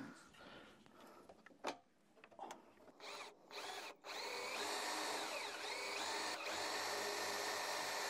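Yellow cordless drill drilling into the wooden barn owl nest box. Two short bursts about three seconds in, then a steady run of over five seconds, its whine dipping and recovering as the bit bites into the wood.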